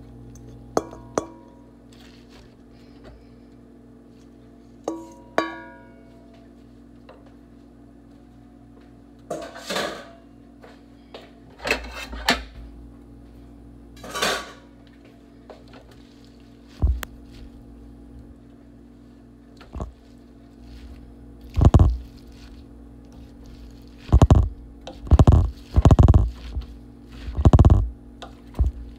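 A metal utensil clinking and scraping against a large stainless steel pot as ingredients are scraped in and mixed with the spinach and vegetables; two clinks near the start ring briefly. Scattered rustles and scrapes follow, and several heavier bumps come in the last several seconds.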